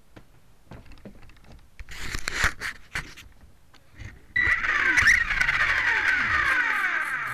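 Radio-controlled helicopter's motor and rotors heard through a keychain camera strapped to its frame, with rattling from the vibrating mount. Uneven clattering at first, then about four seconds in a loud whine sets in suddenly and slides down in pitch.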